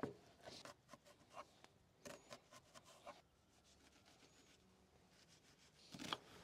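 Chef's knife cutting on a wooden cutting board, faint: a run of short knocks and scrapes as raw beef is cut into chunks, a quieter stretch, then knife knocks on the board near the end as an onion is diced.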